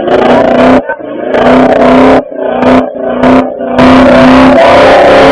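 A car engine revved hard in repeated bursts at a burnout, each burst held near one pitch with short drops between them. Near the end a loud, noisy stretch comes in over the engine. The recording is overloaded and distorted.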